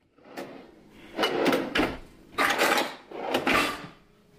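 Kitchen drawers being slid open and pushed shut, four times in quick succession, some closing with a dull thud.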